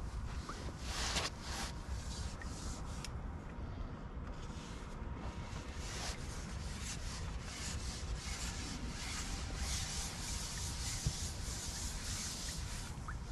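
Rubbing and rustling handling noise in repeated irregular strokes, over a steady low rumble.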